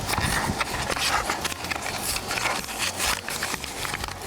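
A small part being handled by hand: irregular clicks, taps and rustling with no steady rhythm, as a new turn-signal flasher is handled.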